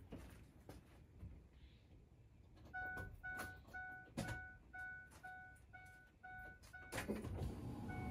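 Ford E350's dashboard warning chime dinging repeatedly, a little under three times a second, starting about three seconds in. Near the end a louder, steady low noise from the van starts up and runs on under the chime.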